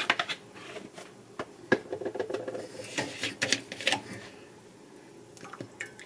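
Vegetable oil being poured from its bottle into a cooking pot: a run of irregular clicks and small knocks, busiest at the start and again between about three and four seconds in.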